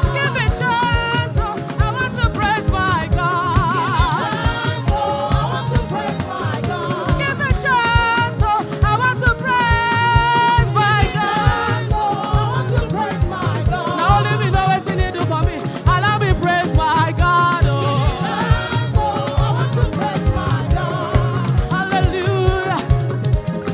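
Gospel choir singing praise music over a band with a steady drum beat.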